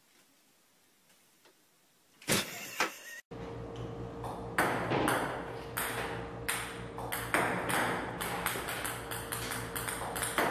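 Table-tennis balls from a ping-pong robot clicking on the table, about two or three a second, over the robot's steady motor hum. It is preceded by a couple of loud knocks.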